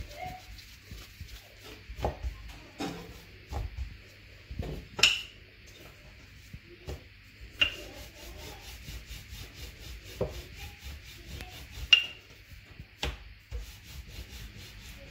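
Wooden rolling pin rolling out naan dough on a floured wooden tabletop: soft rubbing and irregular knocks of wood on wood, with three sharper clicks.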